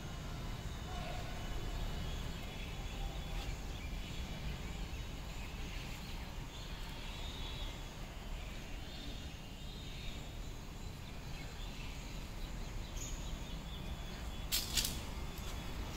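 Steady outdoor background noise with a low rumble and faint bird calls, broken by a brief sharp clatter near the end.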